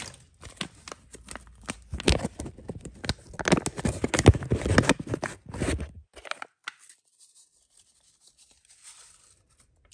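A paper packet of gravy mix being torn open and crinkled by hand: a run of sharp rustles and tears lasting about six seconds.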